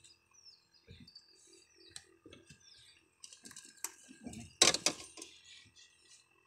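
Light clicking of a fishing reel being wound in, with faint birds chirping, then a short splash about two-thirds of the way through as a landing net lifts the hooked fish out of the water.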